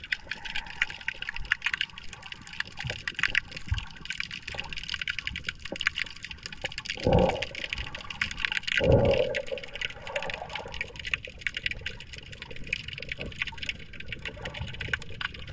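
Underwater sound picked up by a submerged GoPro: a steady crackle of fine clicks over water hiss, with two louder, duller whooshes about seven and nine seconds in.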